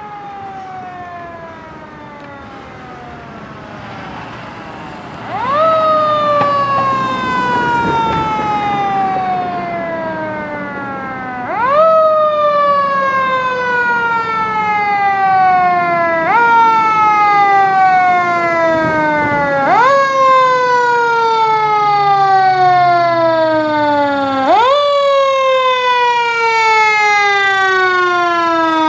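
Fire engine siren responding and drawing closer: the pitch repeatedly winds up sharply and then slides slowly down, about every four to six seconds. It gets noticeably louder about five seconds in and again about twelve seconds in.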